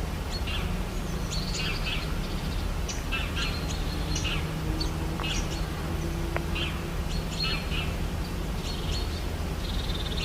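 Small birds chirping and calling repeatedly in quick short phrases, over a steady low background noise, like a nature ambience track.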